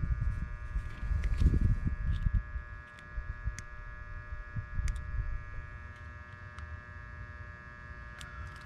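Steady buzzing hum with low rumbling noise underneath, and scattered light clicks of small metal parts as a wire connector on a capacitor's terminal is handled.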